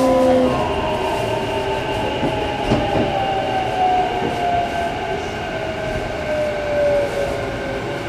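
Sanyo Electric Railway 6000 series train braking for a station stop, heard from inside the car. The motor whine falls steadily in pitch as the train slows, over the rumble of the wheels on the rails, with a single knock about three seconds in.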